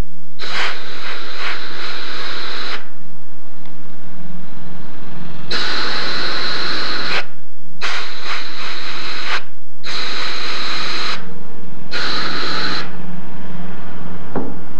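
Handheld spot sandblaster that recovers its sand, hissing against a car's bare steel fender as it blasts rust off a small spot. It runs in five bursts, the first the longest at a couple of seconds and the rest a second or so each, with short pauses between.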